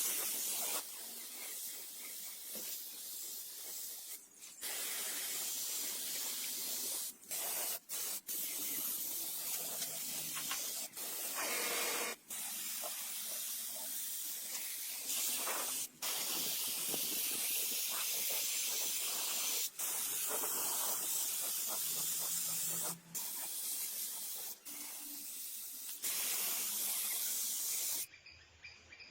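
Hissing spray, steady and high-pitched, broken by many sudden cuts into a string of short clips.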